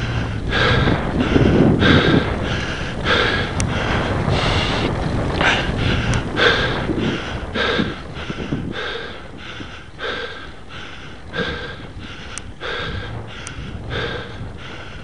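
A cyclist breathing hard and rhythmically, about two breaths a second, from the effort of a long, steep climb. Wind rumbles on the microphone, stronger in the first half.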